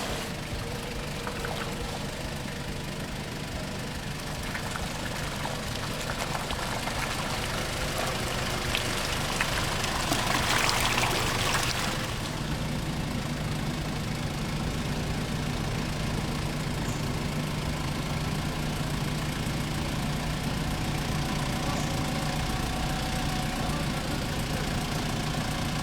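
Off-road vehicle's engine running steadily at low revs, with a brief rush of noise about ten seconds in.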